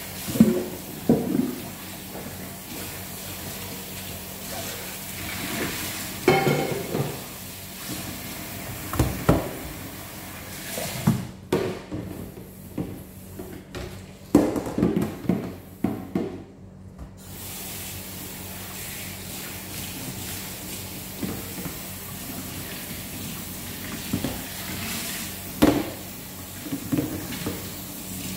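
Tap water running into a stainless steel sink while plastic containers and dishes are rinsed, with repeated clatters and knocks of plastic against the sink. The running water stops for a few seconds about halfway through, then starts again.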